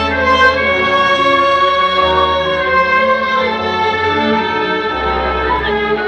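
Orchestral music with bowed strings holding long notes over sustained low bass notes.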